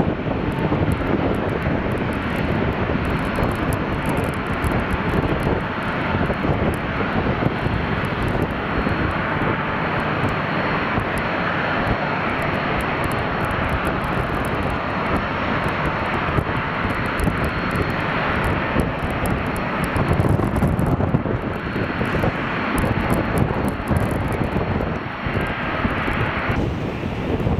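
Airbus A321 twin jet engines running at taxi power: a steady rush of engine noise with a faint high whine, swelling slightly about twenty seconds in.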